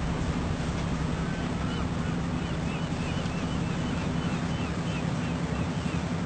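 A steady low droning hum under an even hiss, with a run of faint, short high chirps in the middle.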